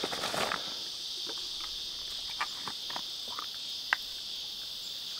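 Steady high-pitched drone of insects in the bush, with a few light clicks and taps scattered through it, the sharpest a little before the end.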